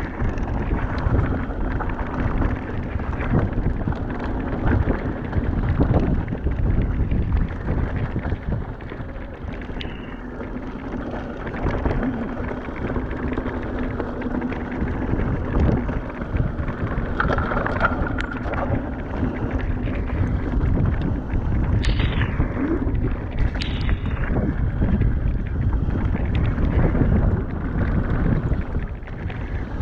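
Wind buffeting an action camera's microphone and a mountain bike's tyres and frame rattling over a wet, rough trail during a downhill ride. A steady hum runs through the first half, and a few short squeals falling in pitch come near the end.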